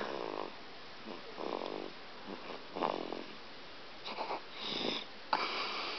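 Snoring: short snores about every second and a half, each lasting under half a second, with a breathier hissing breath near the end.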